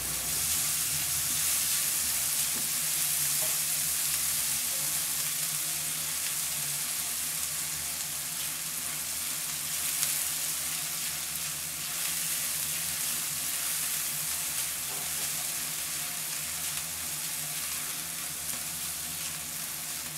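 Chopped onion and crushed garlic sizzling steadily in hot oil in a karahi, stirred with a silicone spatula. They are being lightly fried to cook off their raw taste.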